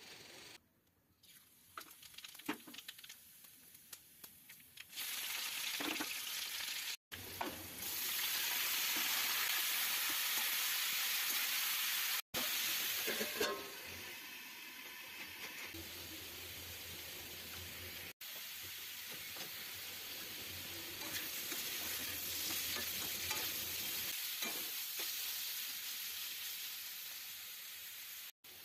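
A few light knocks, then potato sticks frying in hot oil in a steel kadai: a loud, even sizzle that later settles into a steadier, quieter sizzle. The sound drops out for an instant three or four times.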